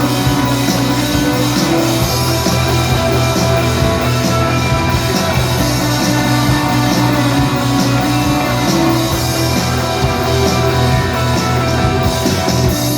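Instrumental break of a rock song: guitars and drum kit with a steady beat, no vocals.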